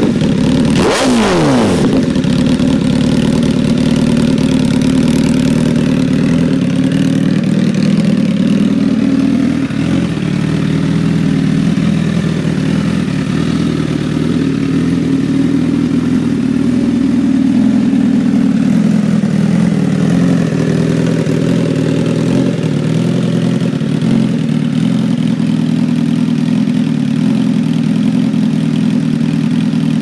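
Honda CBR1000RR SP's inline-four engine running through an SC-Project aftermarket silencer. It is blipped once about a second in, the revs dropping quickly back, and then idles steadily.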